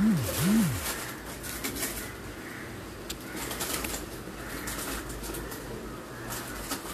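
A pigeon coos twice at the very start, two short low calls that each rise and fall in pitch. After that there is only faint clicking and rustling.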